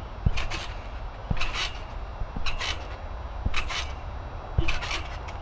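Someone bouncing barefoot on a trampoline, five bounces about a second apart. Each landing gives a low thud of the mat, with a brief rasp from the stretching springs.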